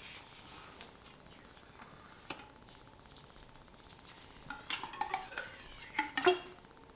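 Light metallic clinks and knocks from a Remington 870 shotgun barrel being handled while an Otis Ripcord bore cleaner is pulled through it. There is a single click about two seconds in, then a cluster of sharper clinks in the second half, the loudest near the end.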